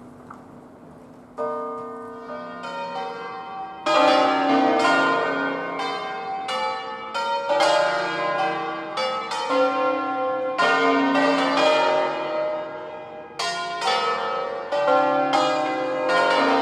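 Peal of eight swinging church bells in B-flat, cast by Mazzola of Valduggia, ringing a full 'distesa'. The first strikes come about a second and a half in. The peal grows much louder from about four seconds in, with several bells striking over one another and each stroke ringing on.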